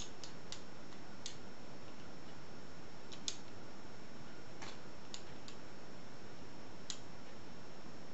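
Light, sharp metallic clicks of a lock pick and tension wrench working in the keyway of a discus-style pin-tumbler padlock, irregularly spaced, about eight over several seconds, over a steady hiss.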